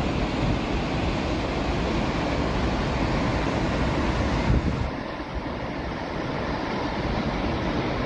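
Steady rush of water with wind buffeting the microphone; the sound changes abruptly about four and a half seconds in, as if to a second recording of the same kind.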